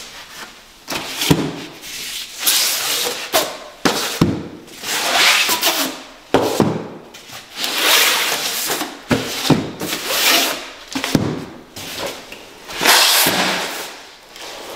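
Large flat-pack cardboard boxes being slid over one another and set down, with cardboard scraping on cardboard in long rasping swells and several sharp knocks and thuds as they land.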